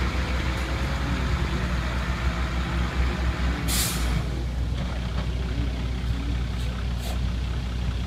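Renault 6x6 military truck's diesel engine running with a steady low rumble as the truck descends a steep dirt slope, with a sharp air-brake hiss about four seconds in and two fainter short hisses near the end.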